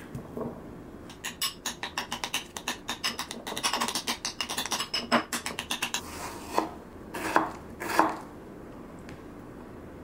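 Food preparation with a kitchen utensil: a quick run of sharp taps, about six a second, for around five seconds. Then come three separate louder strokes, about three-quarters of a second apart, as a chef's knife cuts through a tomato onto a wooden cutting board.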